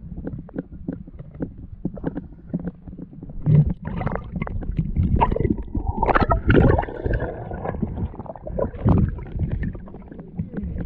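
Water sloshing, bubbling and splashing around a diver's camera as it rises through the water, breaks the surface and goes back under, with many small clicks and pops early on giving way to louder, irregular splashing.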